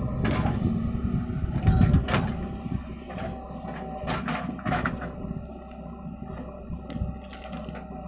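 JCB 3DX backhoe loader's diesel engine running while a bucket of soil is dumped into a tractor trailer in the first couple of seconds, followed by scattered knocks as the bucket and arm move.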